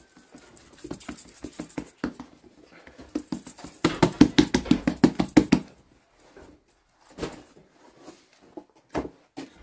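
Hands patting and slapping thin flatbread dough flat on a cloth-covered pad before it goes into the tandoor. There are scattered pats at first, then a quick run of rapid slaps in the middle, then a few more pats near the end.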